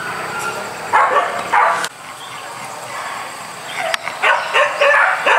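Hunting dog yelping and barking in short bursts: a cluster about a second in, then a quick run of high yelps that fall in pitch near the end.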